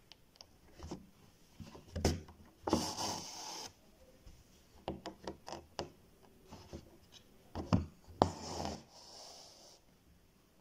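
Embroidery needle and thread worked through fabric stretched in a plastic hoop during back stitching: small clicks and taps as the needle goes through the cloth, and two longer rasping pulls as the thread is drawn tight, about three seconds in and again about eight seconds in.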